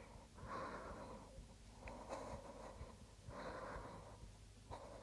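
A woman's faint, steady breathing, four breaths in and out at an even pace of about one every second and a half, while holding a strenuous leg lift.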